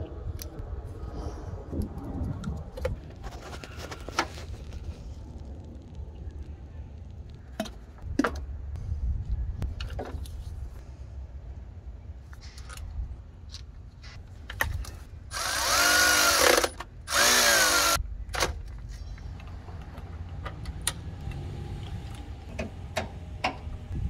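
Handheld power tool running in two bursts of about a second each, its motor pitch bending up and down as it drives in the bolts of the A/C lines, amid scattered light clicks and clinks of tools and metal parts.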